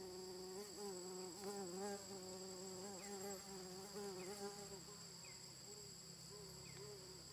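Steady high-pitched insect drone, with a lower wavering hum that rises and dips in pitch, weakening after about four and a half seconds.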